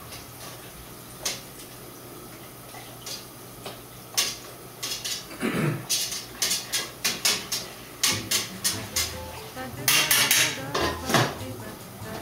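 Metal kitchen utensils and cookware clattering in a run of sharp knocks and clinks over a low steady hum. The clinks are sparse at first and come thick and fast from about four seconds in.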